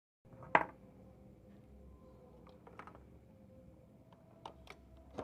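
A sharp click about half a second in, then a few lighter clicks and taps over a faint steady hum: RCA plugs and cables being handled and plugged into a DIY power amplifier setup.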